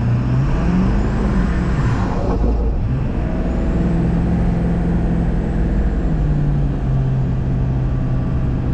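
A Ford 7.3 Power Stroke V8 turbodiesel truck engine running under way. Its note rises over the first couple of seconds, holds steady, then drops to a lower steady note about six seconds in.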